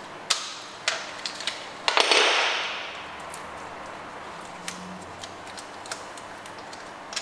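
Ratchet and socket undoing a small 10mm bolt in a cast-iron engine block: a few separate metallic clicks, then a louder brief rasping rush about two seconds in. Light ticks follow as the loosened bolt is turned out by hand.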